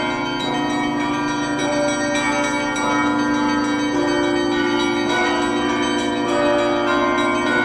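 Russian Orthodox church bells rung by a bell-ringer: several bells of different pitches struck in quick succession, their tones overlapping and ringing on continuously.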